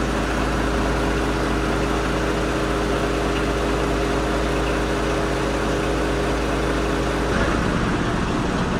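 A fishing boat's inboard engine idling steadily with a constant hum, heard in the engine room. Near the end the steady hum gives way to a rougher, noisier rumble.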